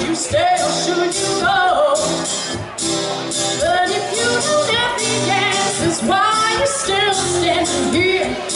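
A woman singing a pop-rock song into a microphone, accompanied by an acoustic guitar, performed live.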